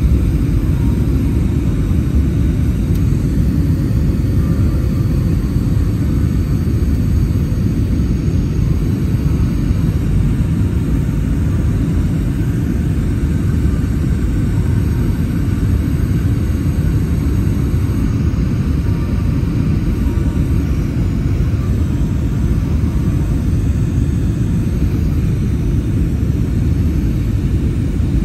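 Steady low rumble inside the cabin of an Airbus A321-200 airliner descending on approach.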